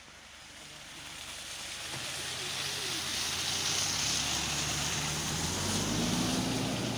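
Toyota Land Cruiser Prado SUV driving up close on a slushy snow-covered road: its engine grows louder as it approaches and rises in pitch near the end, over a steady hiss of tyres through the slush.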